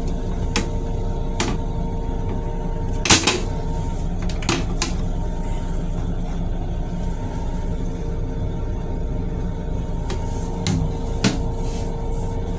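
Plastic toilet seat being handled, giving sharp clacks and knocks (the loudest about three seconds in, a few more scattered through), over the steady rumble and hum of an M7 electric railcar.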